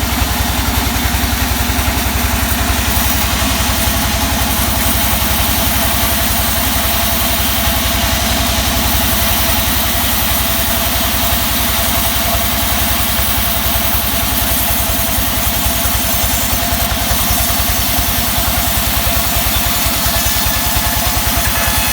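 The sawmill's engine running steadily with a fast, even throb.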